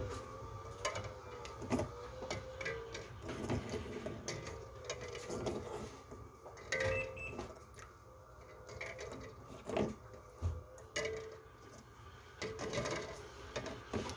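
Eggshells knocking against one another and against the pot as raw eggs are set by hand into water, in a run of irregular light clicks and taps. A faint steady hum runs underneath.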